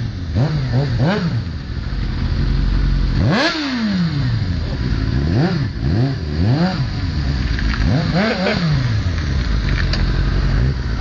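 Kawasaki ZX-7R's inline-four engine, fitted with an aftermarket Vampire exhaust, being revved hard over and over in quick rises and falls, with one longer, higher rev about three seconds in.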